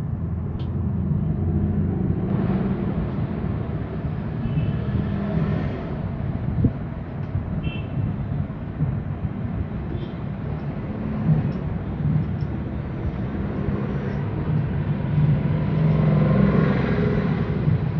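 Road traffic noise: the steady rumble of passing motor vehicles, rising and falling, with a single sharp click about a third of the way through.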